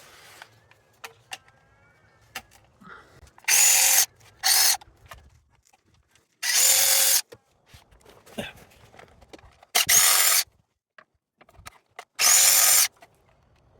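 A handheld power driver spinning out the five 10mm bolts of a timing belt cover, in five short bursts of whirring, each under a second, with light clicks and knocks of handling between them.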